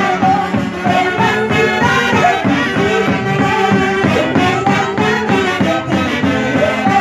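Live Andean folk band music played loud through a stage PA: saxophones and trumpets carry the melody over drums keeping a steady beat.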